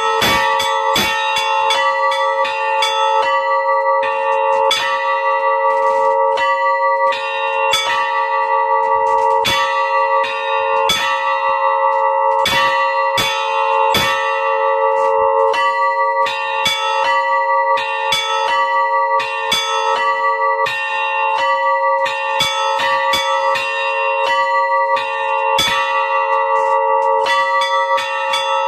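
Three old bells rung together in a quick, continuous pattern, about several strikes a second, each stroke landing on the ringing tones of the others.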